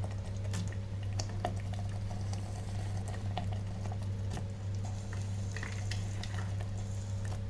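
Thick pea-and-tomato gravy simmering in an electric kettle, with scattered soft pops and clicks over a steady low hum.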